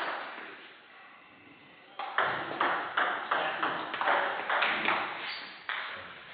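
Table tennis rally: the ball clicking off the bats and bouncing on the table, a quick even run of about three hits a second starting about two seconds in, each hit echoing in a large hall.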